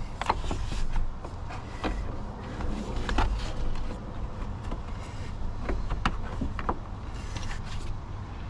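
Scattered clicks and knocks of a hard plastic and metal battery hold-down clamp being worked into place by hand at the base of a car battery, over a steady low rumble.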